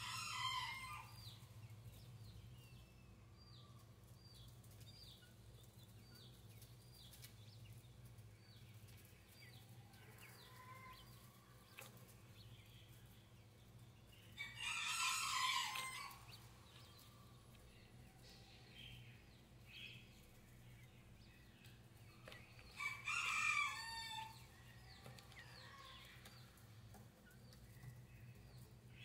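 Fowl calling in the background: three loud calls about a second to a second and a half long, at the start, about halfway and about three-quarters through. Between them come many short, faint, high peeps over a steady low hum.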